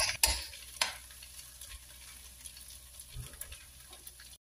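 Rice vermicelli stir-frying in a wok, tossed with tongs and a spatula: a few utensil clicks in the first second, then faint sizzling and stirring. The sound cuts off abruptly near the end.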